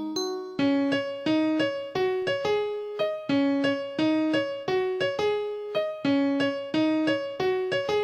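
Instrumental passage of a pop ballad played on a keyboard with a piano sound: a repeating figure of single notes, each struck and fading, about two a second, with no singing.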